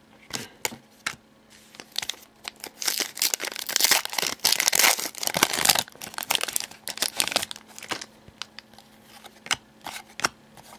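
A 13-14 Elite Basketball trading-card pack wrapper crinkling and rustling as it is opened and handled: quick, sharp crackles, densest from about two to six seconds in, then thinning to scattered rustles.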